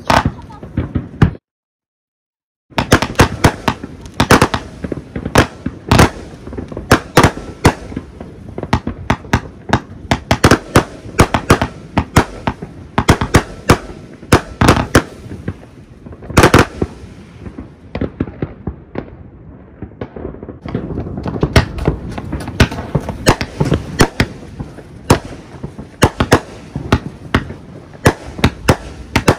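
Consumer fireworks going off in rapid succession: a dense run of sharp bangs and crackles, several a second. It breaks off for about a second near the start, then carries on almost without pause.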